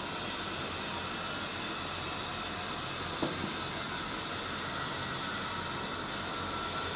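Steady background hiss, with one light tap a little over three seconds in as the sneaker is handled.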